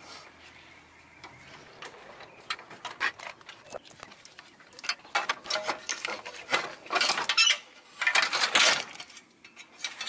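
Flathead screwdriver prying and wiggling plastic grommets out of a thin sheet-metal hood latch mount: irregular clicks, scrapes and rattles of metal and plastic, loudest in a few bursts in the second half.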